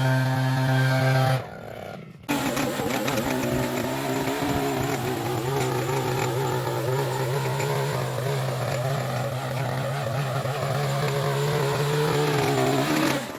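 Small gasoline engine of lawn equipment running steadily. About a second and a half in, the sound cuts out briefly, then an engine runs again with a slightly wavering pitch until it cuts off suddenly at the end.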